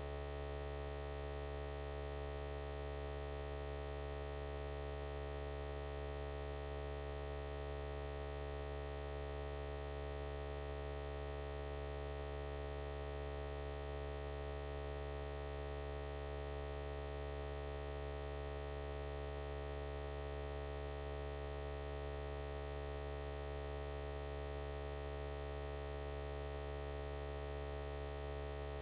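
A steady electrical hum: several constant tones that hold without any change.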